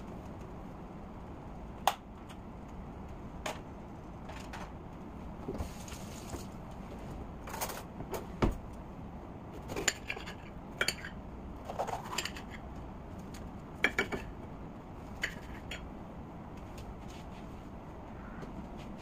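Knife cutting a green bell pepper on a ceramic plate: irregular sharp knocks and clinks of the blade against the plate, over a steady low background noise.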